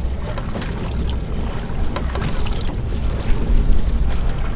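Boat's engine running with a steady low rumble, mixed with wind and water noise, and a few brief knocks or splashes.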